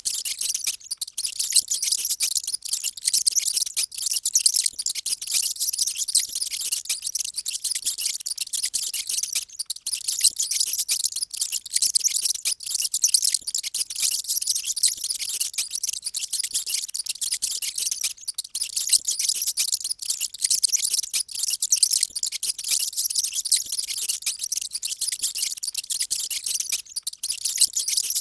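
Many mice squeaking at once: a loud, dense chatter of very high-pitched squeaks overlapping without pause.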